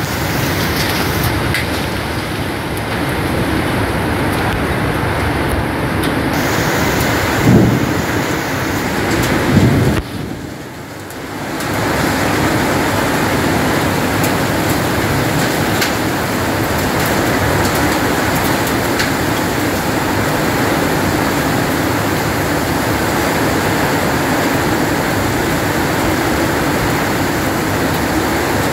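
Heavy rain falling steadily, a dense even hiss. Two brief low thumps come about seven and nine seconds in, and the rain sound drops for a moment shortly after.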